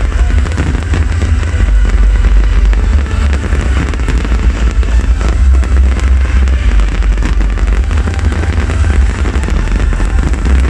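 Fireworks bursting and crackling over loud festival music with a heavy, continuous bass.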